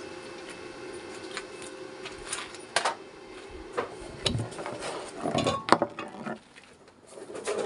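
Metal clanks and clinks of steel pieces and hand tools being handled on a workbench, several sharp knocks between about two and six seconds in. A low steady hum fades out about two seconds in.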